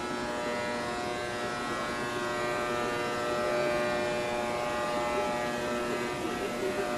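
Steady drone of high-power GE 250 kW shortwave broadcast transmitters running in a transmitter hall: a layered electrical hum of many even tones over a constant rushing hiss.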